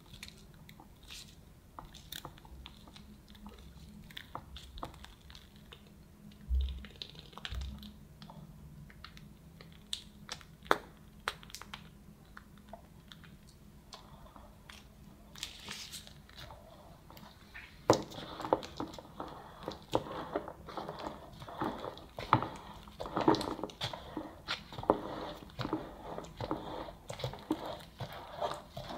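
Close-up kitchen handling sounds of cream being worked onto a cake: sparse soft scrapes and clicks of a metal offset spatula, with two low knocks about a third of the way in. From about two-thirds through comes a denser wet squishing and crinkling as strawberry mascarpone cream is squeezed from a piping bag.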